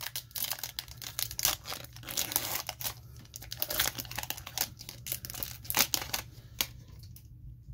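A foil Panini Playbook football card pack being torn open and crinkled by hand, the cards then slid out of the wrapper: irregular crackling and rustling that dies away near the end.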